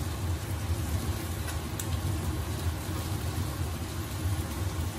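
Steady low kitchen hum by a lit gas burner, with a few faint crinkles from a plastic packet as dry odong noodles are shaken into a pot of boiling soup.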